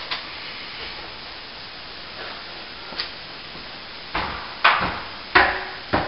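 Footsteps and knocks on an aluminium stepladder as a person climbs it: a few sharp clanks and thuds, the loudest bunched in the second half, some with a short metallic ring, over a steady hiss.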